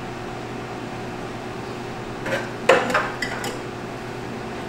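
Glassware clinking in a kitchen cabinet as a glass is taken down from the shelf: a quick cluster of about five light knocks about halfway through, the second the loudest.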